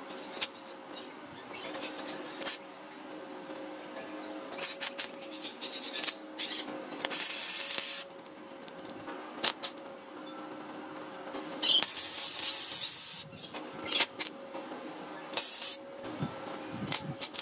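Gasless flux-core MIG welder arc crackling and hissing against a metal plate in several stop-start bursts, the longest about a second each, with short spurts and clicks between. A steady hum runs underneath.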